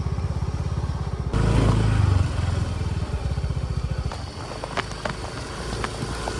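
A vehicle engine running on the road with a steady low pulsing. About a second in, the sound changes abruptly and becomes louder and rougher, and a few scattered clicks come later.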